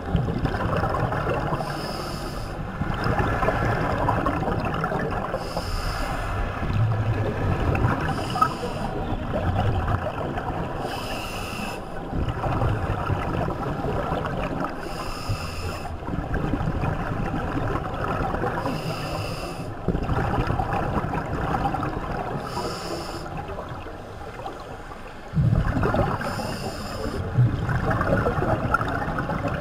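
Scuba diver breathing through a regulator underwater: a short hissing inhale about every three to four seconds, with the low bubbling rumble of exhaled air in between.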